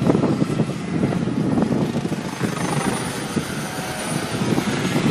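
Radio-controlled scale model helicopter flying overhead, a steady, rough rotor and engine noise with a faint thin high whine in the middle.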